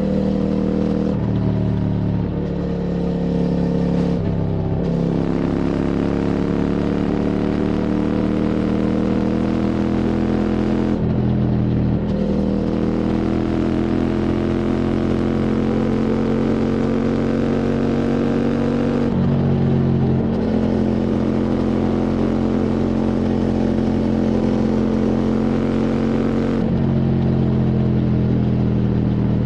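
QJ Motor SVT650X's parallel-twin engine through an Arrow Racetech slip-on exhaust, under hard acceleration. The pitch climbs steadily between several gear changes.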